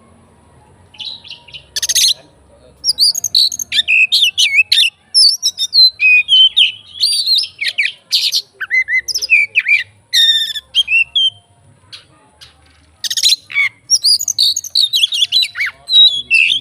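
Oriental magpie-robin (kacer) singing loudly: a fast, varied run of whistles, rapid trills and harsh notes, in two bouts with a short pause about two-thirds of the way through.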